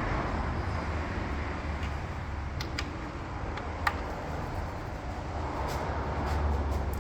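Steady low background rumble, with a few sharp light clicks near the middle.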